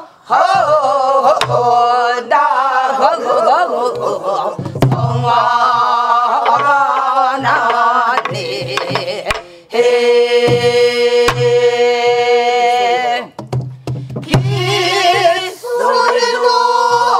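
A class of men and women singing a Namdo folk song together, long held notes with a shaking pitch, to the beat of buk barrel drums: low drum thumps and sharp stick clicks. The singing breaks off briefly twice, for breath between phrases.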